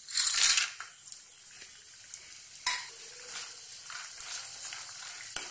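Dried turkey berries (sundakkai vathal) dropped into hot sesame oil: a loud sizzle as they hit the oil in the first half-second, then steady frying with small crackles as they are stirred with a ladle, with two sharp clicks along the way.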